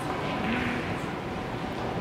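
Steady background noise of a large billiards tournament hall, with a faint voice briefly about half a second in and a few faint distant clicks.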